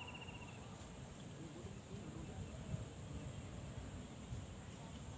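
Steady high-pitched insect drone from crickets or cicadas, with a faint low rumble underneath.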